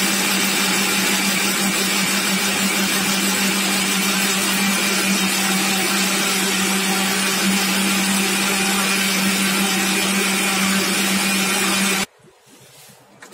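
Electric mixer grinder with a stainless steel jar running at full speed, grinding roasted onion and whole spices with a little water into a wet paste: a loud, steady motor hum and whirr that cuts off suddenly about a second before the end when it is switched off.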